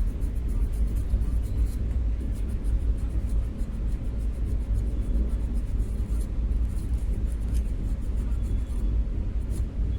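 Hot air rework station blowing steadily, a low even rumble, while a phone CPU is soldered onto the motherboard, with faint light ticks throughout.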